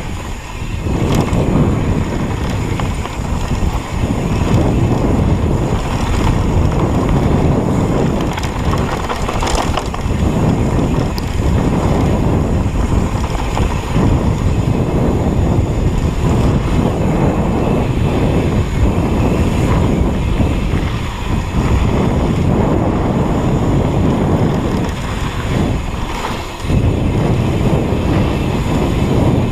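Wind buffeting the microphone: a loud, rumbling noise that swells and dips in gusts, with brief lulls.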